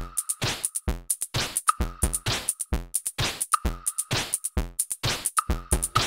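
Electronic music with a drum-machine beat: kick drum and hi-hats in a steady fast rhythm, with a short high synth note repeating about every two seconds.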